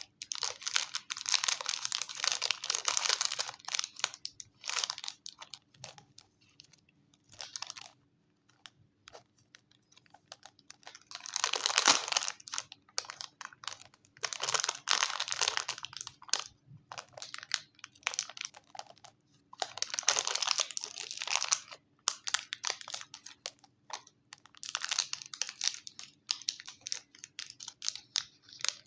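Chocolate packaging crinkling and tearing, in several bursts of one to two seconds with short pauses between them.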